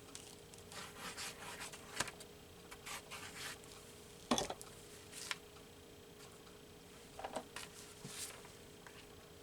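Magazine paper rubbed and smoothed down by hand, in short irregular scratchy strokes with a couple of sharp taps about two and four seconds in.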